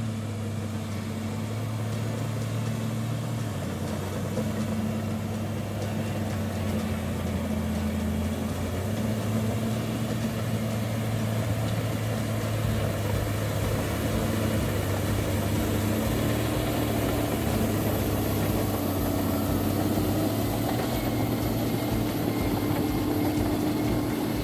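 Heavy diesel engine of a logging machine running steadily, its low drone stepping in pitch a couple of times.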